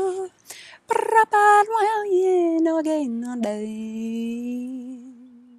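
A woman vocalising light language, a wordless chant: a breath and a few quick sung syllables, then a long note that slides down in pitch about three seconds in and is held, wavering, as it fades out. A short sharp click comes just after the slide.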